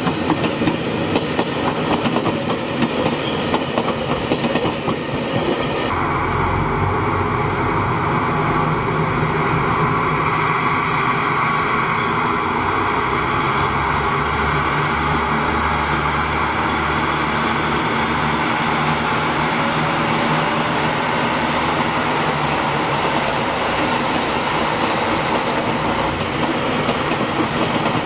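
Passing trains: an electric commuter train's wheels clack over rail joints, then about six seconds in a diesel limited express's engines come in with a deep rumble and steady hum as it approaches and runs past, wheels clattering. The engine rumble fades off in the last few seconds.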